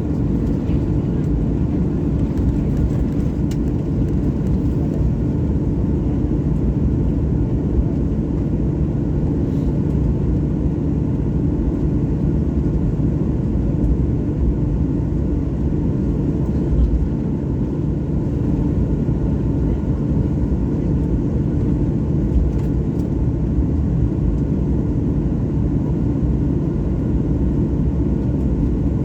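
Jet airliner engine noise: a steady low rumble with a faint whine above it, unchanging throughout.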